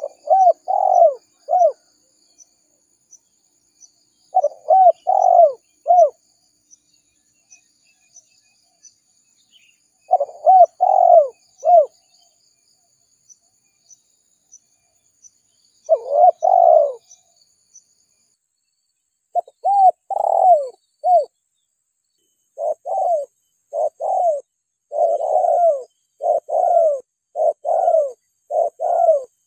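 Spotted dove singing: short phrases of three or four rolling coos, repeated every few seconds at first, then coming almost back to back from about two-thirds of the way through.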